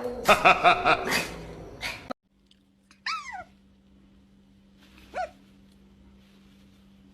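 A dog whimpering: a falling whine about three seconds in and a short rising whine about two seconds later, over a faint steady hum. Before them, a string of knocks and taps is the loudest sound.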